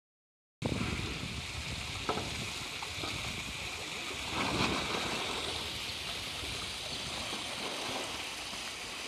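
Steady rushing, splashing water of a polar bear's pool as the bear swims and plays with a ball, with a light knock about two seconds in and a louder splash-like swell about four and a half seconds in.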